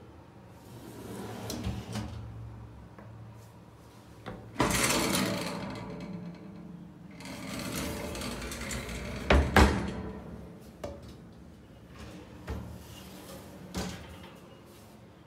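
Stainless-steel wire pull-out kitchen baskets running in and out on their drawer channels: several sliding rushes with light metal rattling, a pair of sharp knocks a little past the middle, and a few short clicks near the end.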